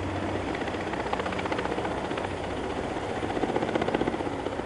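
Helicopter in flight with a load slung beneath it, its rotor beating in a rapid, steady chop that grows louder about three and a half seconds in and then eases.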